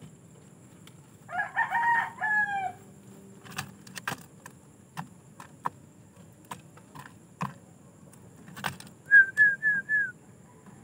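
A rooster crows once, about a second in: one long call with a falling end. Near the end come four quick, short, falling chirps, with scattered light taps and clicks between.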